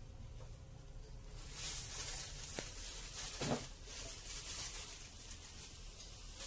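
Grated coconut heating in a pan, giving a faint hiss and crackle that swells about a second and a half in, with one brief dull thud partway through.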